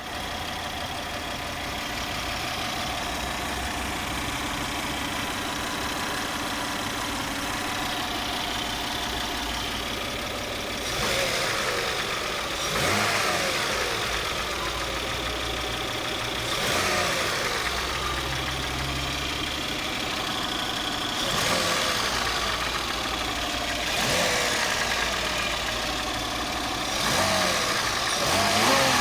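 Toyota 1MZ-FE V6 engine idling steadily, then blipped about six times in the second half, each rev rising and falling back to idle. It knocks as the throttle is released, after a major overhaul, with the cause unknown.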